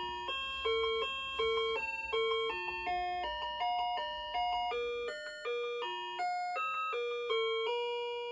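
1994 VTech Little Smart Table Talk activity centre playing a simple electronic tune: single beeping notes one after another, each fading away, ending near the end on one long held note.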